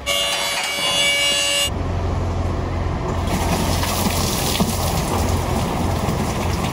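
A steady held tone sounding several pitches at once for the first second and a half. Then a low steady hum with the hiss of coolant draining from a 1964 Buick Riviera's cooling system into a clear plastic tub, growing more hissy about three seconds in.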